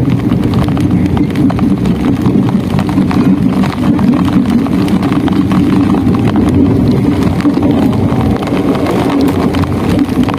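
Passenger train running, a steady loud low rumble heard from inside the carriage, with faint irregular ticks over it.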